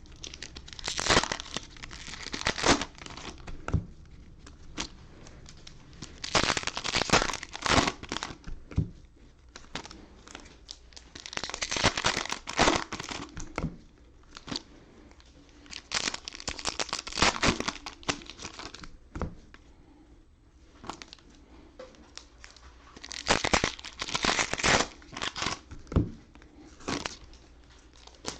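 Cellophane wrappers of football trading-card cello packs crinkling and tearing as the packs are opened one after another, in bursts of a second or two with short pauses between.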